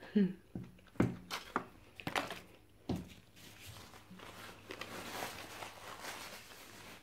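Several light knocks and taps on a table as a pastry is set down on a paper towel, then paper towel rustling and crinkling as it is used to wipe mouth and hands.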